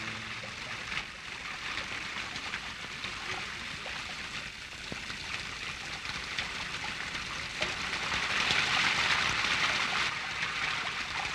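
Steady rushing, trickling noise like running water, with small crackles through it; it swells louder about eight seconds in and eases near the end.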